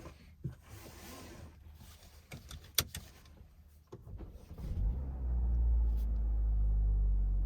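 Inside a car: a few sharp clicks in the first seconds, then a low, steady engine hum comes up about four seconds in and grows louder.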